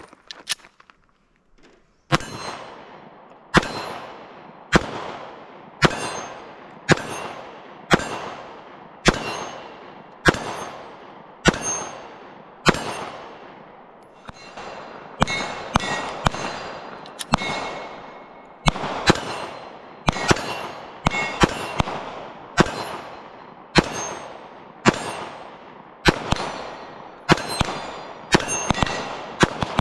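Glock 43X 9mm pistol firing a long string of single shots, starting about two seconds in at about one a second and coming quicker in the second half. Each shot is followed by the ring of a steel target plate being hit.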